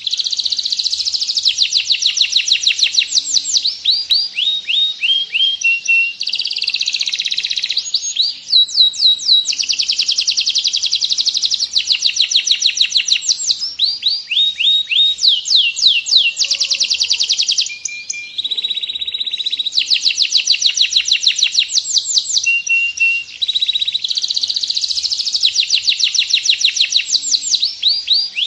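Domestic canary singing in the Cililin song style: long runs of fast trills made of rapidly repeated down-slurred notes, with a brief break in the trilling about 18 seconds in.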